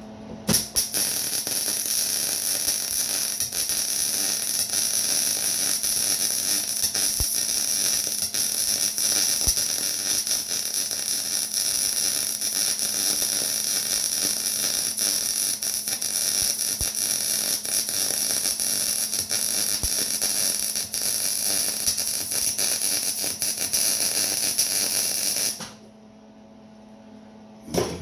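A power tool running steadily with a high, hissing whine. It starts about half a second in and stops suddenly near the end.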